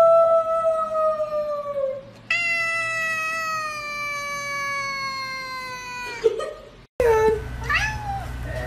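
Tabby cat giving two long, drawn-out meows, each slowly falling in pitch; the second lasts about four seconds. After a short break there are a few brief rising squeaks.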